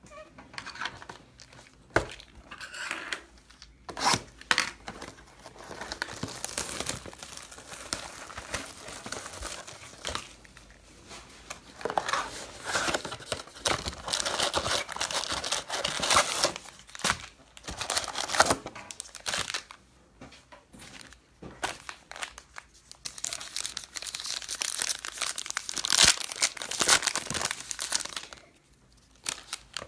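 Foil wrappers of sports card packs being torn open and crinkled by hand, in irregular spells with sharp crackles and a short lull about two-thirds of the way through.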